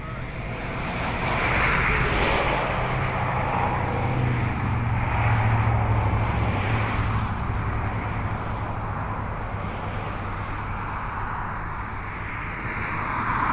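Traffic passing on a highway: tyre noise swells and fades as vehicles go by, with a low engine hum as a pickup towing a trailer passes in the middle and another vehicle passing near the end.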